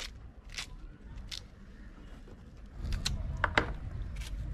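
Large kitchen knife scoring and cutting pomegranate rind: a few short, sharp crunches and clicks at irregular moments. A low rumble comes in about three seconds in.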